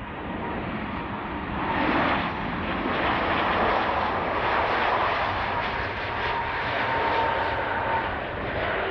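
Airbus A330-200 jet engines on landing approach, a broad rushing jet noise that swells about two seconds in as the airliner passes close at low height, then holds steady. A faint steady whine runs through the second half.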